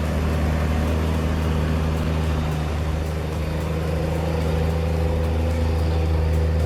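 Large diesel engine running steadily at a constant speed, with a deep, even drone.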